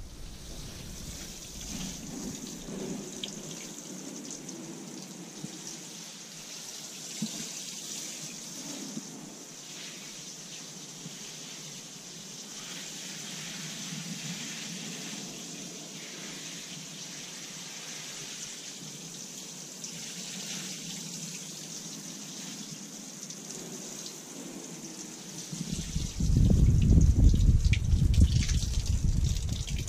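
Water pouring from a plastic watering can onto a bed of dry peat, a steady hissing trickle and splash as the peat is soaked before sowing. A much louder low rumble comes in for the last few seconds.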